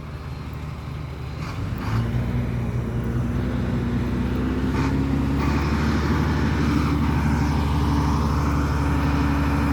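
Heavy work machine's engine running, revving up about two seconds in and then holding a steady, louder pitch.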